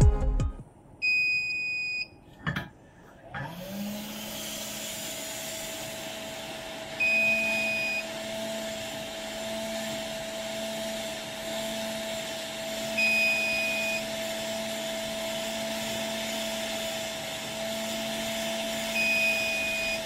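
Hot-air rework gun blowing on a laptop CPU at about 400 degrees with airflow set to 60: a steady rush of air with a low electric hum, starting up a few seconds in. A one-second high beep from the rework equipment sounds about a second in and then repeats about every six seconds.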